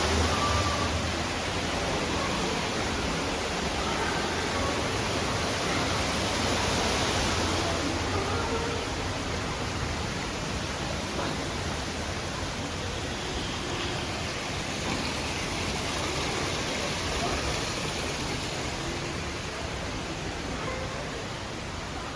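Steady rushing noise like falling water, with faint voices in the background.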